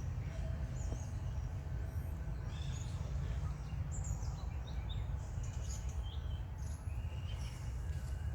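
Outdoor forest ambience: a steady low rumble with many short, high chirps and squeaks scattered throughout.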